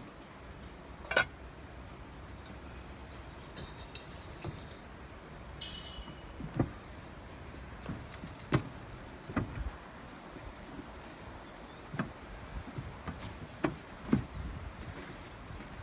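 Roof-tile work: scattered sharp knocks and clinks, about seven in all, against a steady low background.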